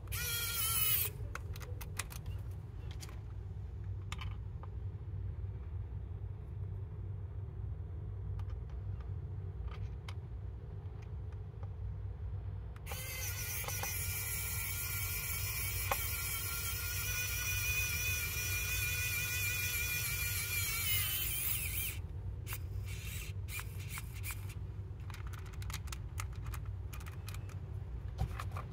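Pen-style electric precision screwdriver driving small screws into a 3D-printed plastic part. Its motor whine cuts off about a second in, a few light handling clicks follow, then it runs again for about nine seconds from about the middle, its pitch sagging slightly just before it stops. A steady low hum sits underneath.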